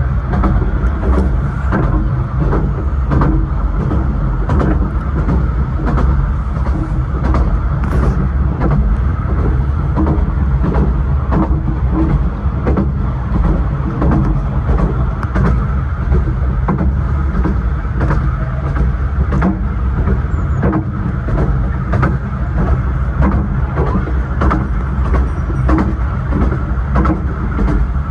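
Miniature 15-inch gauge railway carriage running along the track, heard from inside its compartment. A steady low rumble carries frequent, irregular clicks and knocks of the wheels on the rails.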